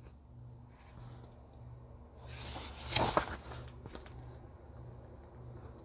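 A stiff picture-book page being turned: a paper swish that builds and peaks with a crackle about three seconds in, then fades. Under it a low hum pulses about one and a half times a second.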